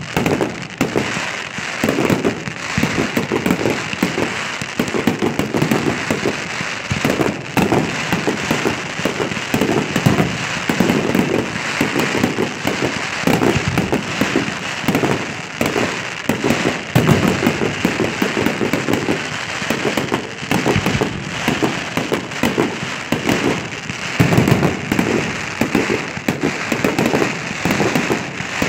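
Aerial fireworks display at full intensity: shell bursts bang in quick, overlapping succession, over a continuous crackle.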